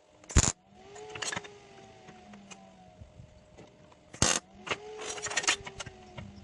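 Steel parts clanking and rattling as they are handled: two sharp clanks about four seconds apart, each followed by lighter metallic rattles, over a faint steady hum.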